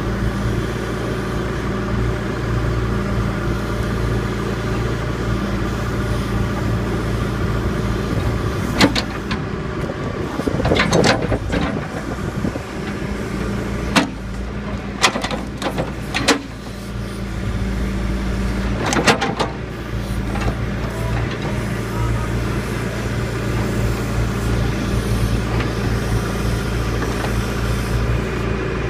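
Diesel engine of a John Deere backhoe loader running steadily as the backhoe works its bucket against a large log. About a third of the way in, a cluster of sharp knocks and clanks comes through, with more near the middle.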